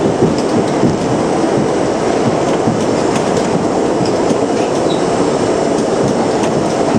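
New York City subway train running through a tunnel, heard from inside the car: a loud, steady noise of wheels on rail with a few scattered clicks.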